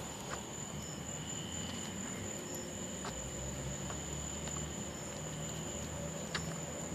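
Crickets chirring in a steady high tone over a low vehicle idle rumble, with a few faint clicks.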